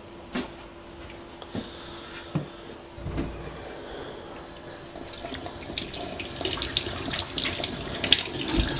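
Kitchen tap turned on about four seconds in, water running into a stainless steel sink and splashing over hands held under the stream, after a few light knocks.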